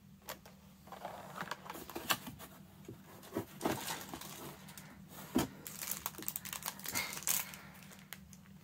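Packaging crinkling and rustling as items are handled, with irregular crackles and small clicks.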